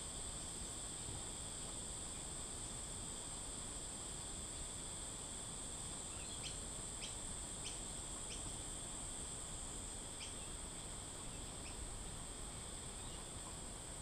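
Steady high-pitched insect chorus that keeps going without a break, with a few short high chirps in the middle.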